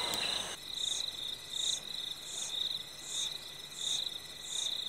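Insects, cricket-like, trilling steadily at a high pitch, with a second, higher chirp repeating about every three-quarters of a second.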